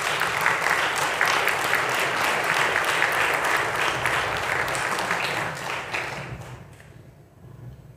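Audience applauding, a dense patter of many hands clapping that dies away about six to seven seconds in.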